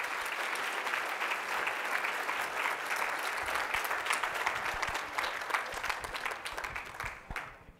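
Audience applauding at the end of a talk, many hands clapping steadily, then fading out near the end.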